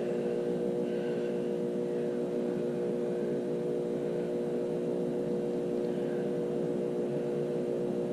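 A steady hum made of several fixed tones, unchanging throughout.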